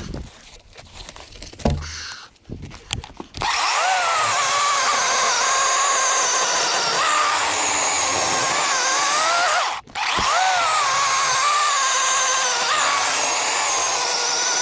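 DeWalt 20-volt cordless electric chainsaw cutting a log. A few knocks of handling come first, then the motor runs with a steady high whine whose pitch sags and recovers under load. It stops briefly about ten seconds in and then runs again.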